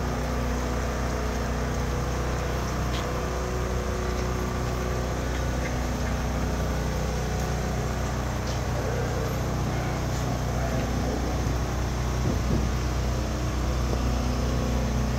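Steady low engine hum, like a vehicle idling, with the faint noise of a crowd walking on a street.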